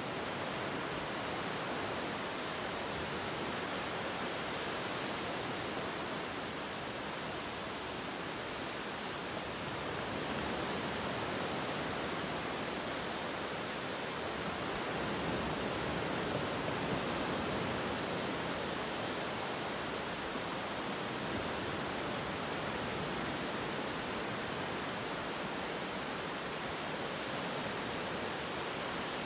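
Steady rushing noise, an even wash with no distinct events, swelling gently in loudness a couple of times.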